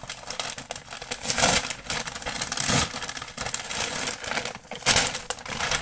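Paper shipping packaging being handled and torn open: irregular crinkling and rustling, with a few louder ripping bursts.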